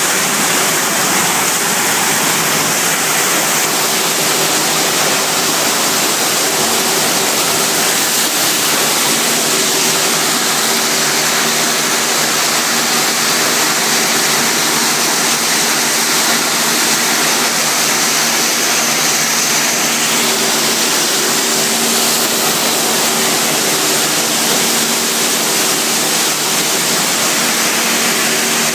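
Waste-plastic washing machine running: a steady, loud rush of water-like noise, with a faint low hum of machinery underneath.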